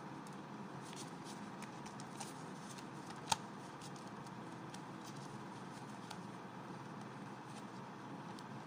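Paper banknotes rustling and ticking faintly as fingers leaf through a stack of Saudi riyal notes, with one sharp snap of a note a little over three seconds in.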